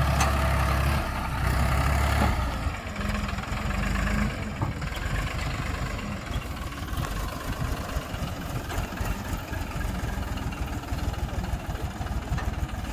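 Farm tractor's diesel engine working hard under load as it pulls a heavily loaded trolley out of mud, loud for the first couple of seconds. It then eases to a lower, steady run with a fast firing beat as the tractor drives off.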